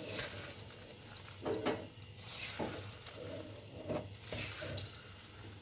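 Wooden spatula stirring sugar-coated peanuts in a metal pan: the nuts rattle and scrape against the pan in irregular strokes. The sugar has dried and crystallised onto the peanuts, the coating stage of the cooking.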